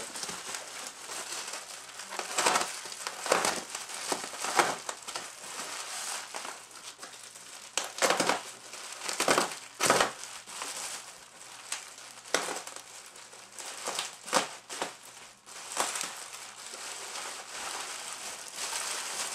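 Plastic bubble wrap being handled, cut and pulled open, crinkling and rustling irregularly with several sharper, louder crackles in the first half.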